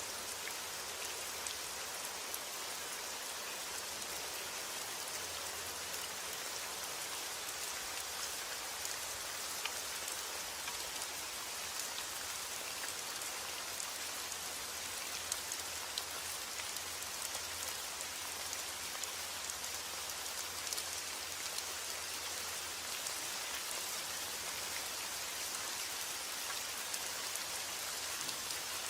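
Steady rain falling, an even hiss with scattered sharper drops ticking through it.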